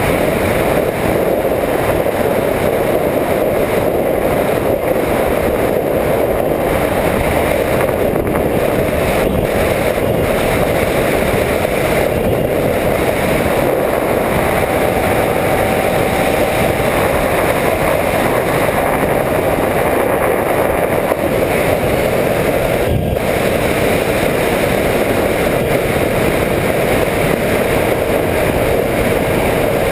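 Steady rush of air and airframe noise from a Skywalker 1900 RC plane in flight, picked up by its onboard GoPro camera. A faint steady tone joins about three quarters of the way in.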